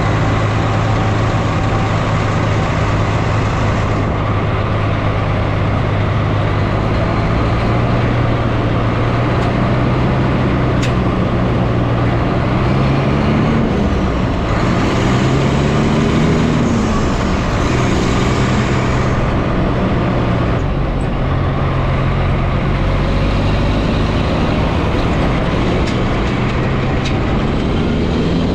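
Large farm vehicle engine running steadily under load; its pitch rises and falls a few times near the middle, as with revving or shifting, then settles back to a steady note.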